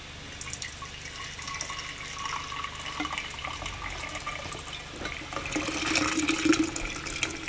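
Hot maple syrup poured from an enamelware coffee pot into a glass canning jar: a steady trickling stream into the jar, growing louder over the last couple of seconds as the jar fills.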